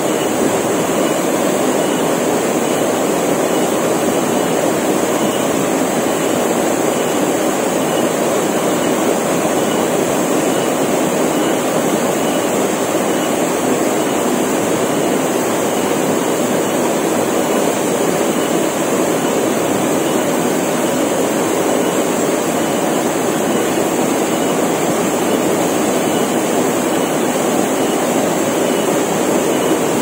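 Small waterfall pouring into a rock pool: a steady, unbroken rush of falling water. Cicadas drone steadily at a high pitch above it.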